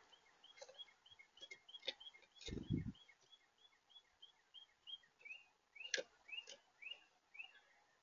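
A songbird calling a long series of short, quickly repeated chirping notes, slower and stronger in the second half, picked up faintly by a bird-feeder camera's microphone. Sharp clicks sound on the feeder, and a low thump about two and a half seconds in is the loudest moment.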